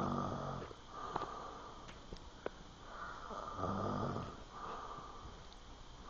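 A sleeping man snoring: a low rattly snore as it starts and another a little past halfway, about three and a half seconds apart, with breathy air between them.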